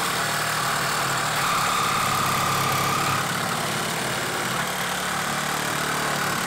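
Cordless KIMO reciprocating saw with an 18-teeth-per-inch metal blade running steadily as it saws through a metal pipe. A high ringing note from the blade on the metal joins between about one and three seconds in.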